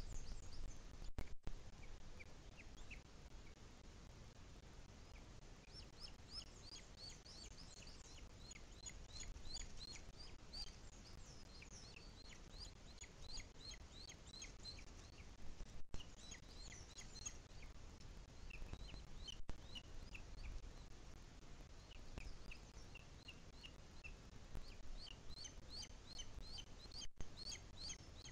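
Birds chirping: runs of thin, high, quick chirps that come and go, over a low steady background rumble.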